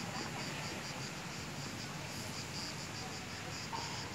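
Insects chirping in the trees in a steady pulsing rhythm of about four beats a second, over a soft outdoor hiss.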